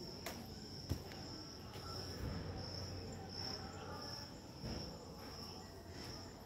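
Steady high-pitched trilling of insects in the trees, pulsing slightly, with a few soft knocks, the sharpest about a second in.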